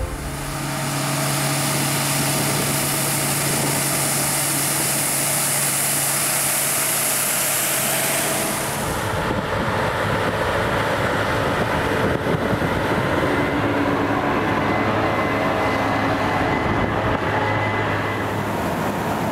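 Combine harvester running steadily while harvesting with a stripper header: a constant machinery hum with a dense hiss. About nine seconds in the sound changes, the strong high hiss dropping away and a lower steady hum carrying on.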